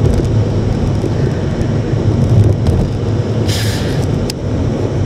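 Car interior driving noise: steady low engine and tyre rumble heard from inside the cabin. A short hiss comes about three and a half seconds in, followed by a single click.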